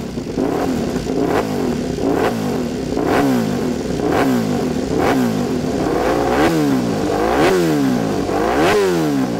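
Honda racing motorcycle engine revved while standing still, in quick throttle blips about once a second, each one a sharp rise and fall in pitch, with the blips climbing higher in the second half.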